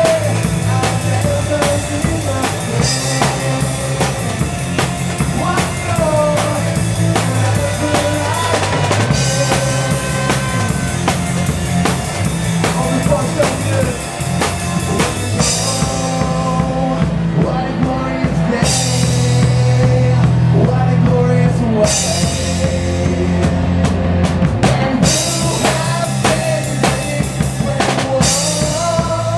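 Live band playing an instrumental passage without vocals, the drum kit prominent over bass and electric guitar. Cymbal crashes come roughly every three seconds in the second half.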